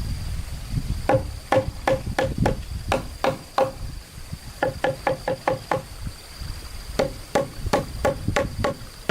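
Hammer blows on wood: sharp, ringing knocks in three quick runs, a few a second. A steady high insect buzz continues behind them.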